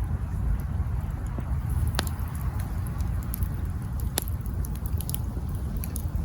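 Campfire burning: a steady low rumble of flames with wood crackling and scattered sharp pops, the loudest about two seconds in and again just after four seconds.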